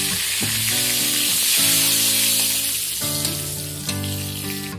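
Whole spices (bay leaves, radhuni and panch phoron) sizzling in hot oil in a steel wok: the tempering for sukto, with a steady crackling hiss. Background music with held notes plays underneath.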